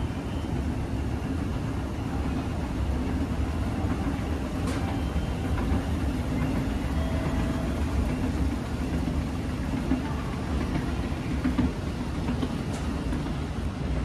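Hitachi escalator running with a rider aboard: a steady low rumble and hum from the moving steps and drive, with a couple of faint clicks.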